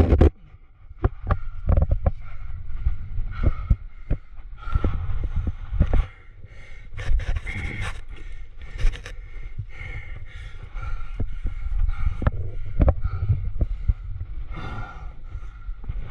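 A crack climber breathing hard in repeated heavy breaths while clothing and a body-worn camera scrape and knock against sandstone, under a constant low rumble of rubbing on the microphone.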